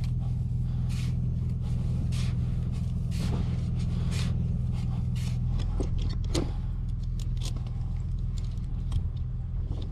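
Four-wheel drive's engine idling with a steady low hum. Over it come crunching scrapes in soft sand about once a second, then sharp metallic clicks later on as a ratchet strap buckle is worked loose.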